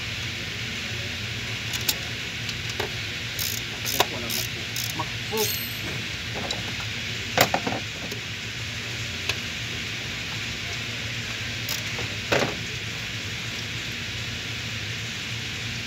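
Steady rush of the Silverado's electric radiator cooling fan, which keeps running even with the key off, the fault being repaired here along with its code P0128. Over it come sharp metallic clicks and taps of pliers on hose clamps and fittings: a quick run of them about four seconds in, and single louder clicks around seven and twelve seconds in.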